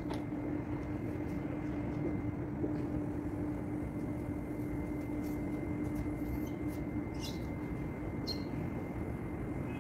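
Steady mechanical hum with a constant low tone, from the pool's filter pump running to draw water through the vacuum hose. A few brief high chirps sound over it.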